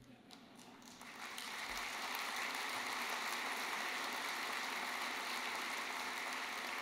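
Audience applause, swelling over the first two seconds and then holding steady.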